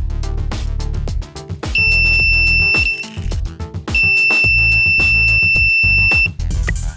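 An electronic buzzer sounding a steady high-pitched alarm tone twice, once for about a second and then for about two and a half seconds, over background music with a steady beat.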